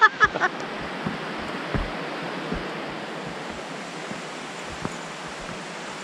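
Steady rush of a waterfall, with a few faint low thumps. Laughter trails off at the very start.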